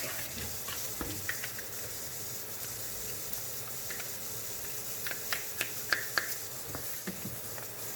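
Tap water running into a sink with a steady hiss, and a few light knocks of plastic vacuum parts a little after halfway.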